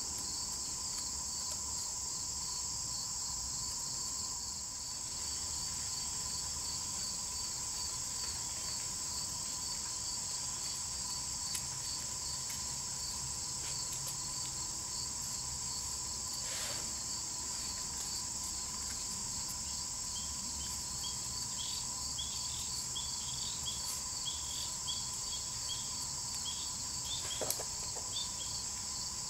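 Steady high-pitched chorus of insects. A few short higher chirps come in during the last third, and two faint knocks sound, one about halfway through and one near the end.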